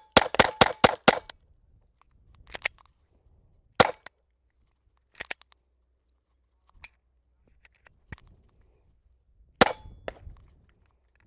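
Glock 44 .22 LR pistol firing: a fast string of about six sharp shots in the first second, then single shots about 4 and 9.5 seconds in, with fainter clicks and knocks between.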